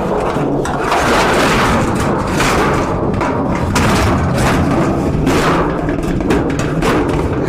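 Scrap being handled and shifted, with repeated knocks and thuds over a continuous rattling, scraping noise.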